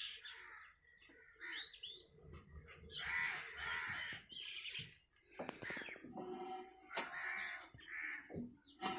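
Crows cawing: several separate, irregular calls.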